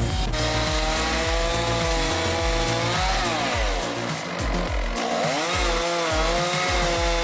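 Chainsaw running at high revs, its pitch dipping briefly about three seconds in and again around five seconds, over background music with a steady bass beat.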